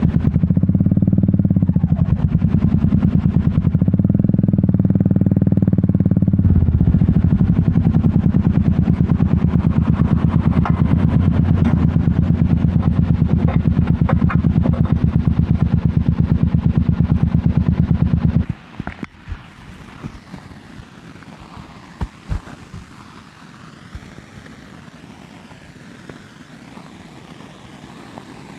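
Royal Enfield Meteor 350's single-cylinder engine running steadily at low revs with an even exhaust beat, then switched off about two-thirds of the way in, cutting off suddenly. A few clicks and knocks follow over a quieter background hiss.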